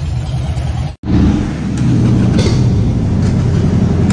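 Harley-Davidson V-twin motorcycle engine running steadily at idle. The sound drops out for an instant about a second in, then the engine carries on a little louder.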